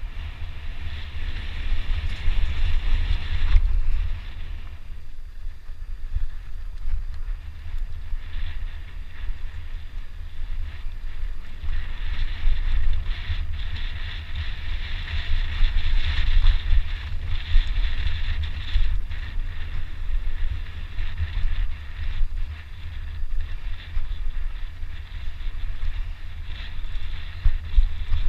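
Downhill mountain bike ridden fast down a trail: wind buffeting the microphone with a heavy rumble, over tyre noise on dirt and frequent small rattles and knocks from the bike.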